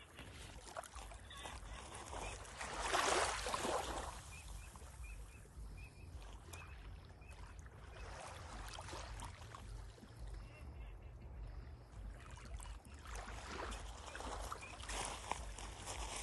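Sea waves washing onto the shore in swelling rushes, about three seconds in, around eight seconds and again near the end, over a low steady rumble.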